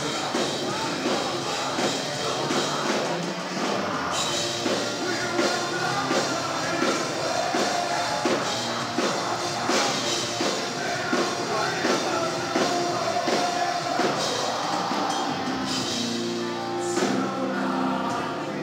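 Heavy metal band playing live at full volume: distorted guitars and a pounding drum kit, with a singer's vocals over them, heard from out in the crowd of a club.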